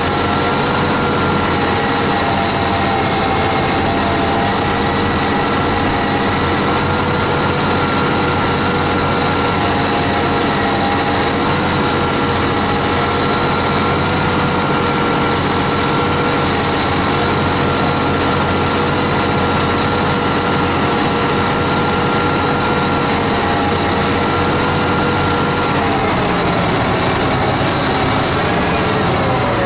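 John Deere 8320R tractor's six-cylinder diesel running steadily, heard close by the front wheel, with a steady mechanical whine over the engine noise. Near the end the pitch drops and wavers.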